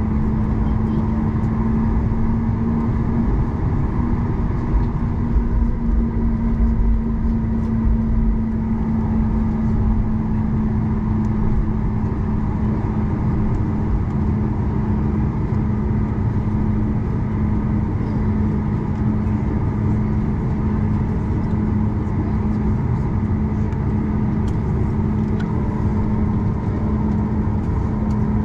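Cabin noise of a Boeing 737 MAX 8 taxiing, its CFM LEAP-1B engines at taxi idle: a steady hum with a constant low droning tone.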